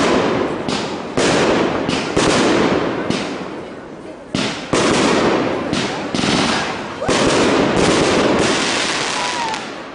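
Aerial fireworks shells bursting in quick succession: about a dozen sharp bangs over ten seconds, each trailing off in a long rolling echo.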